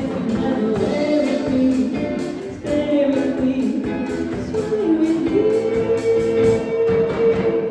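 A song sung by a singer over guitar accompaniment, with a long held note starting about five seconds in.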